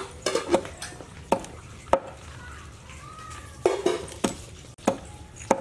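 Giant freshwater prawn shells cracking and being cut against the blade of a boti, about nine sharp clicks and snaps at uneven spacing.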